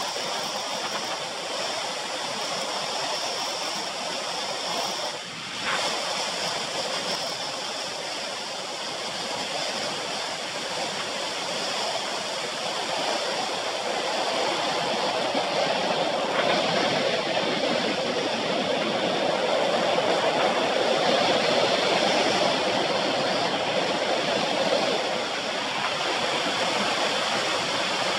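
Steady rush of wind over the microphone of a handlebar-mounted camera on a road bike riding fast on a paved road, with tyre noise beneath; it dips briefly about five seconds in and grows louder over the second half as the bike picks up speed.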